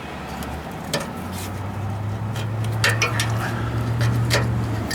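Metal tools and sway bar link parts clinking and knocking against each other as the link and its worn rubber bushings are worked off a Landcruiser 100 series front sway bar, several sharp clinks over a low steady hum that comes in about a second in.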